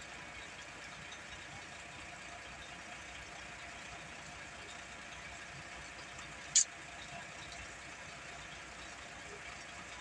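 Steady faint mechanical hum in the background, with one short sharp click about six and a half seconds in from hand work at the excavator's fuel filter.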